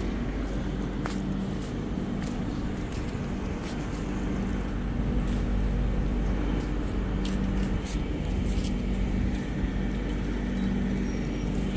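Freight train's flat wagons rolling past close by: a steady rumble of steel wheels on the rails, with a low hum and scattered sharp clicks.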